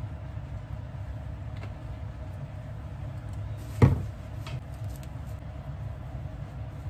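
A glass olive-oil bottle set down on a kitchen counter with a single sharp knock a little under four seconds in, followed by a couple of faint clicks, over a steady low hum.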